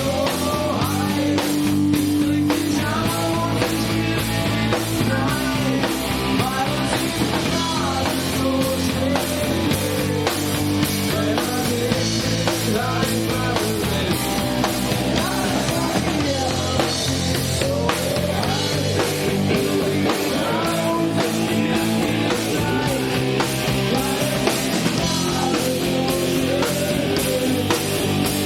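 Live rock band playing at full volume: drum kit, electric guitars and bass.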